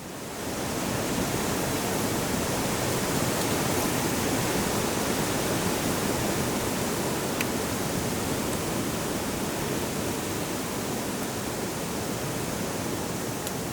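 Steady, even rushing noise spread across all pitches, fading in during the first second and then holding constant.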